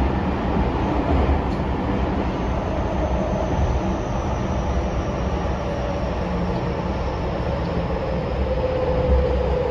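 Tokyo Metro 10000 series subway car running through a tunnel, heard from inside the car: a steady rumble of wheels on rail, with a faint high whine slowly falling in pitch.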